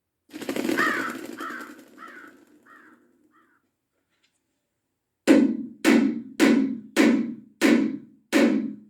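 A crow cawing about five times, each call fainter than the last. Then, after a pause, six heavy hammer blows at an even pace, each ringing briefly.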